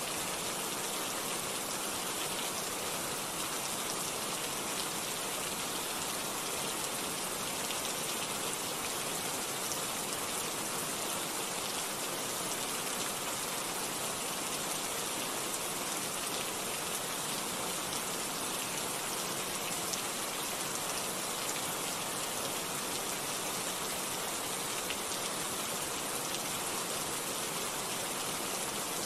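Rain falling steadily: a dense, even hiss of many drops that holds constant throughout, with no breaks or single loud impacts.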